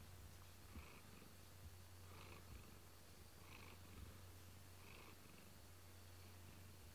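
A domestic cat purring faintly and steadily, close to the microphone.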